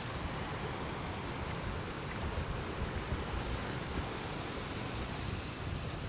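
Steady wind buffeting the microphone over small waves washing against the rocky shore.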